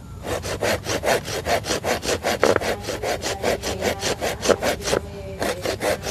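Hand saw cutting wood with quick, even back-and-forth strokes, about four to five a second, with a brief pause about five seconds in.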